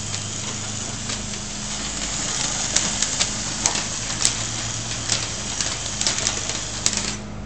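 Small Lego electric motor running, turning wheels that pull paper off a roll, a steady whirring hiss with scattered clicks and rattles as the K'nex seismograph frame is shaken. The whirring stops suddenly near the end.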